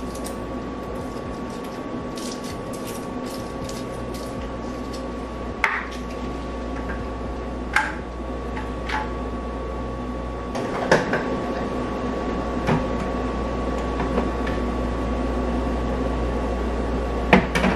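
A steady machine hum runs throughout, with a few sharp knocks and clinks of kitchenware spread through it.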